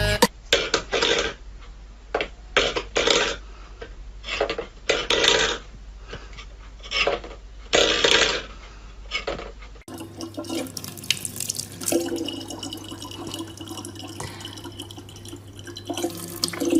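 Stainless-steel pet bowls knocking and scraping on a wooden floor in a string of short, irregular clatters. About ten seconds in, this gives way to a thin stream of water running from a tap into a plastic bottle, with a low steady hum underneath.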